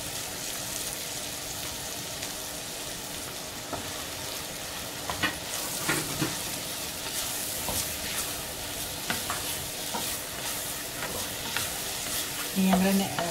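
Onion-tomato masala sizzling in a non-stick pot as fried potato cubes are stirred through it with a wooden spatula. The spatula scrapes and knocks against the pot now and then, more often in the second half.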